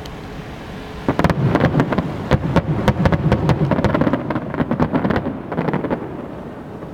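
Fireworks going off: about a second in, a rapid volley of many sharp bangs and cracks over a low rumble, which thins out and stops near the end.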